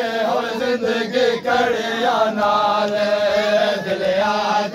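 Male voices chanting a Punjabi noha, a Muharram lament, in unison, with held, gliding notes. Sharp slaps recur about once a second, typical of hands striking chests in matam.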